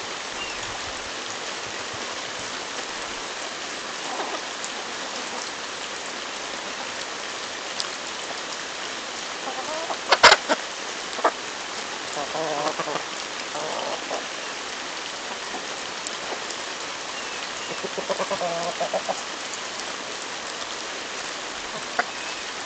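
Chickens clucking in short bursts as they crowd and peck at a corncob held out by hand, with a few sharp knocks about ten and eleven seconds in, the first the loudest. A steady hiss runs underneath.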